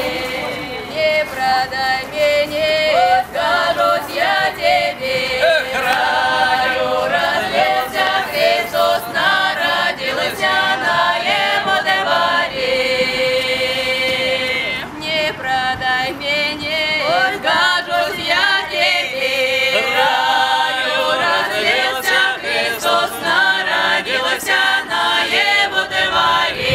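A folk vocal ensemble singing a cappella in Russian traditional style, several voices together, with a few long held notes.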